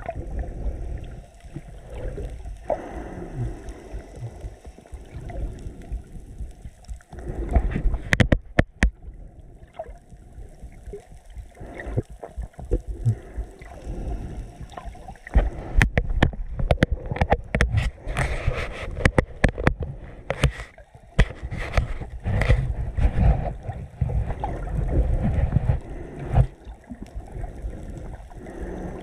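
Muffled rumble and sloshing of water around a GoPro Hero 7 Black recording underwater, with a couple of sharp clicks about eight seconds in and a long run of crackling clicks from about halfway through.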